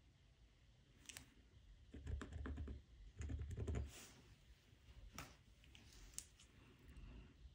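Faint handling noise of a hand and marker pen on Aida cross-stitch fabric: light taps and rubbing in a cluster through the middle, with a few single clicks before and after.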